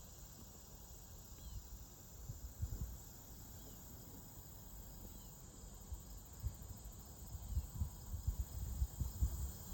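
Quiet outdoor ambience: wind gusting on the microphone, low and uneven, growing stronger near the end, over faint insect chirring.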